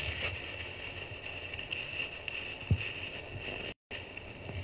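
Quiet room tone with a steady high hum, a single dull thump a little over halfway through, and a split-second moment where the sound cuts out completely.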